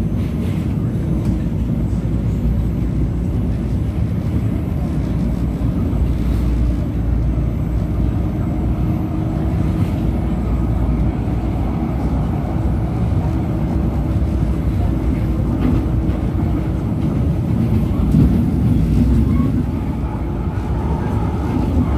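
Manila LRT Line 1 light-rail train running along its elevated track, heard from inside the car: a steady low rumble with a faint steady hum, swelling briefly near the end.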